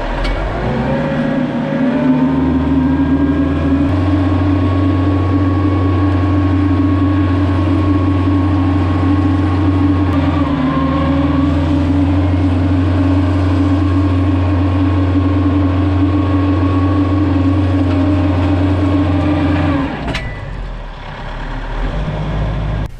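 Kioti RX7320 tractor's diesel engine pulling a chisel plow through soil. It comes up in revs over the first couple of seconds, runs steady under load, then drops back about twenty seconds in.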